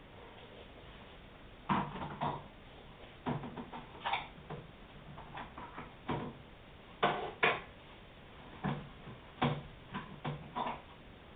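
Irregular knocks and clicks of hard objects being handled, about a dozen scattered through, several in quick pairs.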